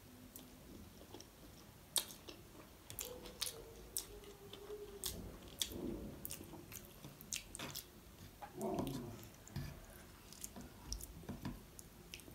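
Close-miked mouth sounds of someone chewing a forkful of Hakka noodles: an irregular string of sharp, wet smacks and clicks, several a second at times.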